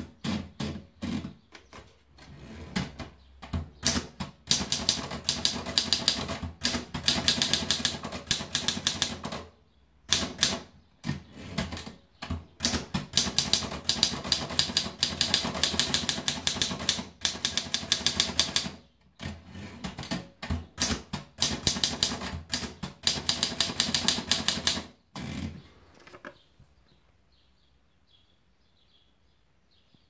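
Torpedo model 18 manual portable typewriter: the platen is turned to wind in the paper, then typed on in quick runs of key and typebar strikes with short breaks between lines. The typing stops about 26 seconds in.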